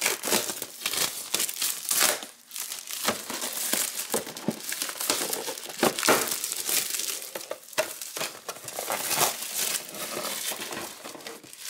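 Clear plastic shrink-wrap being torn and peeled off a cardboard box, crinkling and crackling irregularly throughout.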